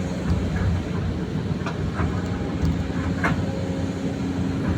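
Excavator's diesel engine running steadily, with a few sharp knocks.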